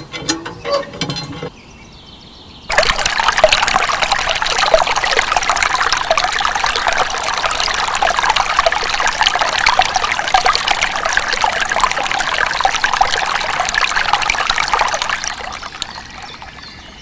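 A stream of water pouring and splashing steadily. It starts suddenly about three seconds in and fades away near the end.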